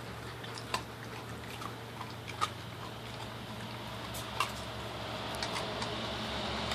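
German Shepherd chewing a raw chicken drumstick: scattered sharp clicks and crunches of teeth on meat and bone, three of them louder and spread out.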